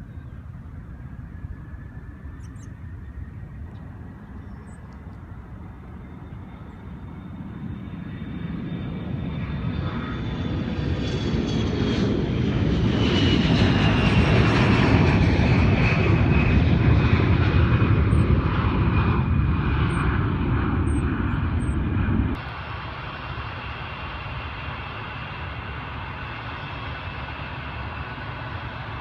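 An airliner's engines passing close by: the engine noise swells over about seven seconds, holds loud with a whine that falls in pitch, then drops suddenly about two-thirds of the way through to a steady distant rumble.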